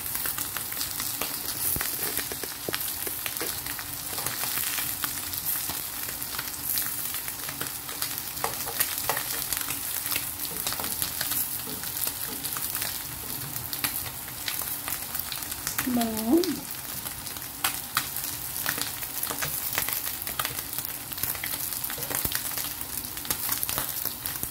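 Beltfish pieces shallow-frying in hot oil in a pan, sizzling and crackling steadily as the skin turns super crunchy, while tongs move the pieces about. About sixteen seconds in, a brief pitched sound rises and falls.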